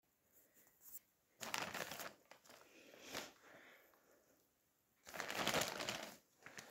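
Plastic wrapping and blanket being handled, crinkling and rustling in two bursts of about a second each, one early and one near the end, with a shorter crinkle between.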